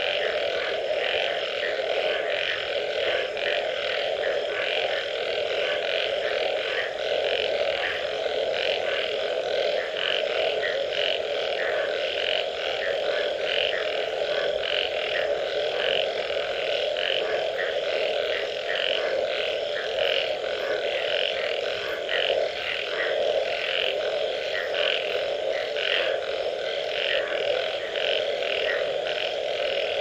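A dense chorus of many frogs calling together: a continuous croaking drone underneath, with a crowd of higher, quickly repeated calls overlapping on top.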